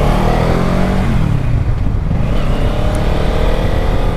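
Motorcycle engine revving up, dropping in pitch about a second and a half in, then running at a steady pitch over a low rumble.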